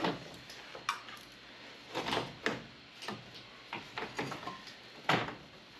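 Clunks and scrapes of sheet metal and copper tubing as an evaporator coil's tube plate and cut line stubs are worked loose from the air handler cabinet: a run of separate knocks and short scrapes, the loudest about five seconds in.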